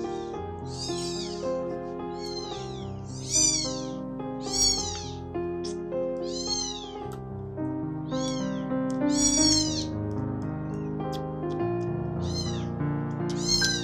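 Three-week-old kittens mewing: high-pitched mews repeated roughly once a second, over background music.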